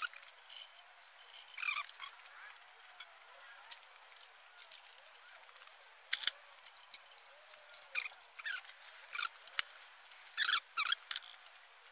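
Faint, scattered metallic clicks and short squeaks of hand tools at work on a French Ford flathead V8's valves: a valve spring compressor being worked to free the keepers. The clicks come singly every second or two, with a few quick squeaks near the start and a cluster near the end.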